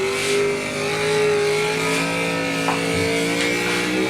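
A drag-racing Mustang's engine pulling hard at full throttle through a long gear on a pass. It gives one sustained, steady note that climbs slowly in pitch.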